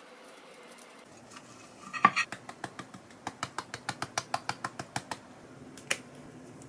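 Seasoning shaker bottle shaken in quick strokes over food: a run of sharp clicks, about six a second, for about three seconds, loudest at the start, then a single click near the end.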